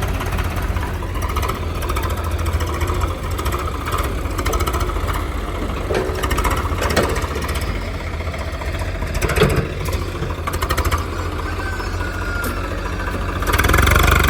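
Heavy diesel machinery engines running steadily at a work site where a backhoe loader fills tractor trailers with soil, with a few short knocks midway and a louder surge near the end.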